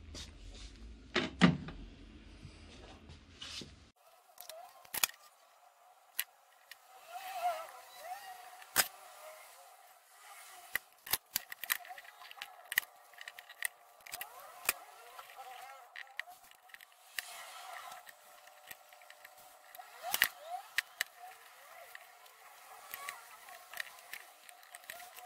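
Workshop handling sounds: a loud knock about a second and a half in, then a run of light clicks and knocks as wooden pieces are set on a workbench and one-handed bar clamps are slid and squeezed tight.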